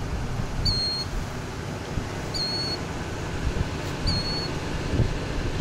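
A bird calling: a thin, high, clear peep repeated three times, about every second and a half to two seconds, over a steady low rumble.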